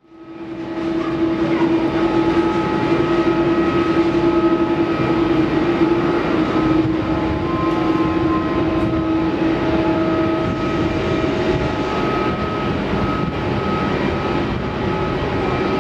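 Jet engines of a Boeing 777 airliner coming in to land: a steady roar with a steady whine in it.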